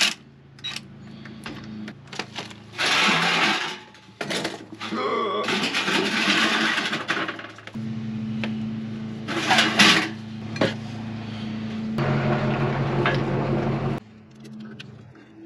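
A cordless drill runs in short bursts on a brake caliper's bolts, with metal parts clinking against each other and a metal tub, over a steady low hum.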